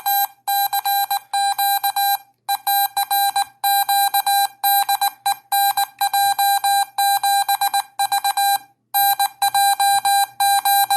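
Morse code sidetone from a CW Hotline unit, keyed by a homebrew force-sensing Morse paddle. A single steady-pitched beep switches on and off in quick dits and dahs, with short pauses between groups, and shows the paddle is working.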